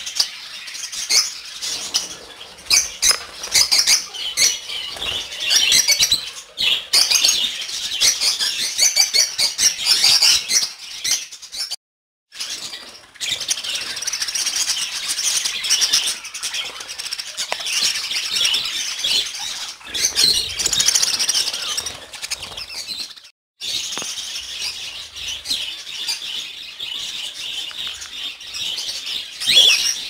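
Dense chorus of many caged small pet birds (lovebirds, budgerigars, cockatiels and finches) chirping and chattering at once, high-pitched and unbroken except for two brief dropouts.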